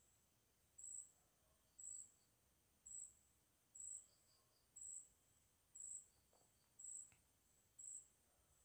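A cricket chirping faintly, a short high-pitched chirp repeating very evenly a little more than once a second.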